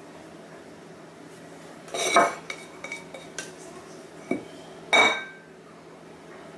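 Black plastic slotted serving spoon clinking and knocking against a bowl while peanut butter crumbles are scooped out: a few short, ringing clinks, the loudest about two seconds in and again about five seconds in, with smaller taps between.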